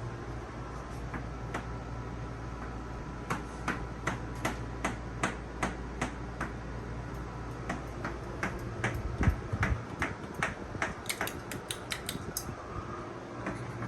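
Broan ceiling fan running with a steady low hum, with many sharp, irregular clicks over it.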